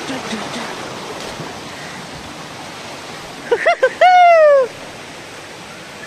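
Waterfall stream rushing steadily over rocks. About three and a half seconds in, a person's voice gives a few short yelps and then one long falling shout, louder than the water.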